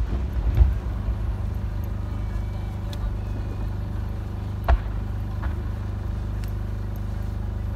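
Large aerial fireworks shells: the rolling low rumble and echo of a shell burst in the first second, then a sharp bang about four and a half seconds in and a smaller one shortly after, over a steady low drone.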